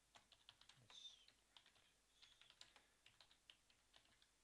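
Faint typing on a computer keyboard: a quick, irregular run of key clicks that stops shortly before the end.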